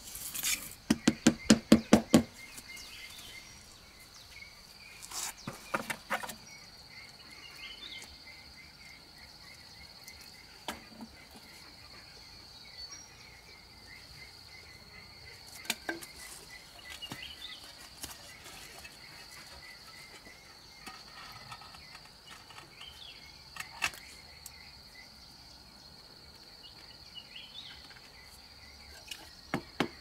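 Steady high insect trill over a quiet background, with a quick run of about eight sharp taps in the first two seconds and a few scattered knocks and clinks later.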